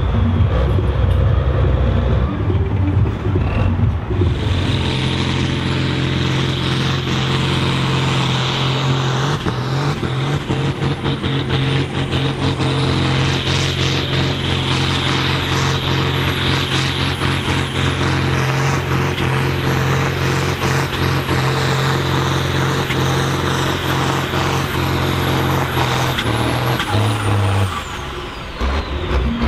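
Ford TW-25 tractor's six-cylinder turbo diesel working at full load pulling a weight sled: a steady, heavy engine note with a high turbo whistle over it. About four seconds in it comes up to full power and the whistle rises; near the end the power drops off and the whistle falls away.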